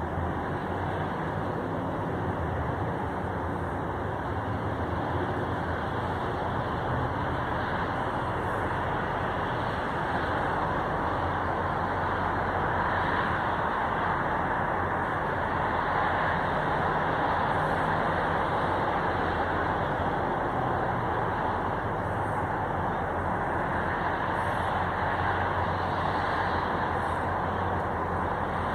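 Steady low rumble of a diesel locomotive approaching slowly, mixed with traffic noise, growing a little louder toward the middle.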